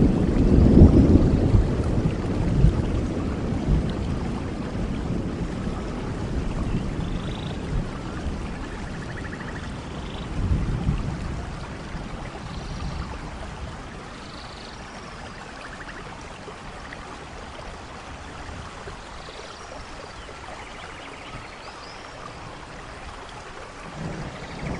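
Steady rain with rolling thunder: a loud rumble at the start dies away over about twelve seconds, with a second roll about ten seconds in, leaving quieter rain until thunder rises again near the end.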